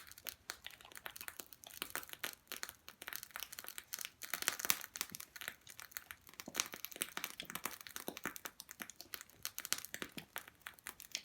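Food frying in a small hot frying pan over a wood fire, a dense, irregular sizzle of rapid crackles and pops.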